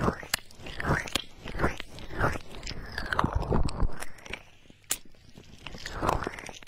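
Hands cupping and rubbing over the ears of a binaural dummy-ear microphone, heard close up as irregular swishing, crackly strokes about once a second with low rumble. A sharp click comes near the end.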